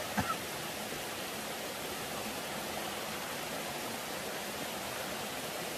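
Steady rushing of running water from a nearby stream, with a brief click just after the start.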